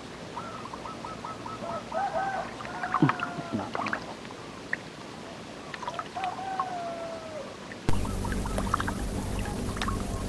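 Bird calls: a quick run of short whistled notes, then a long gliding note. About two-thirds of the way through, the sound changes abruptly to a louder, steady low hum.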